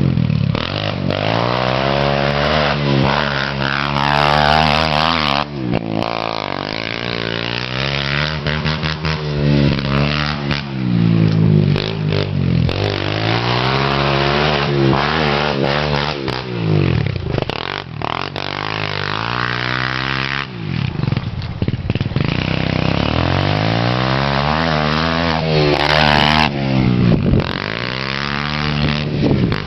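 Kawasaki KLX 110 pit bike's single-cylinder four-stroke engine being ridden hard, revving up and dropping back over and over, every few seconds.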